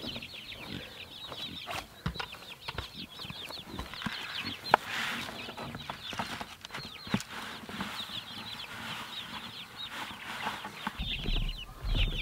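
Young Freedom Ranger chickens peeping, many short high falling chirps, with feed poured from a bucket into a PVC pipe trough around the middle.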